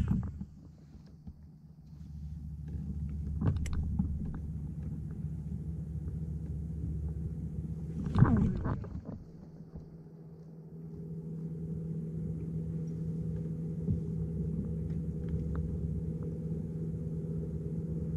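Two casts with a fishing rod, one right at the start and one about 8 seconds in, each followed after a short pause by a steady low whirring hum as the reel is cranked to bring the lure back.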